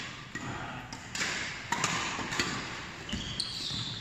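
Badminton rally: several sharp racket strikes on the shuttlecock in the first couple of seconds, then short high squeaks of sneakers on the court floor near the end.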